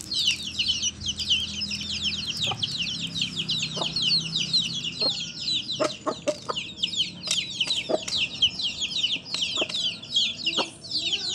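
A brood of young chicks peeping without pause, many high, falling peeps overlapping each other, with a few sharp clicks scattered through.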